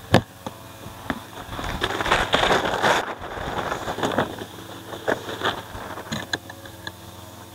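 A plastic tarp ground sheet crinkling and rustling as it is pulled out and shaken open over grass, loudest about two to three seconds in, with scattered crackles after. A sharp knock comes just at the start, as a plastic storage box is set down.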